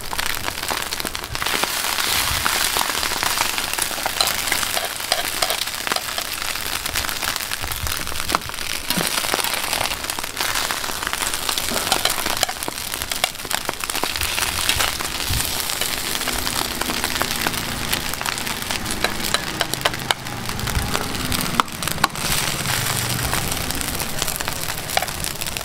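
Egg and glass-noodle patties sizzling on a hot flat-top griddle, a steady crackling hiss, with small clicks and scrapes of a slotted metal spatula against the griddle and plate.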